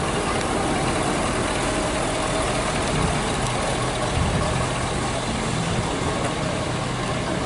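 Fire brush truck's engine idling steadily, a low even hum.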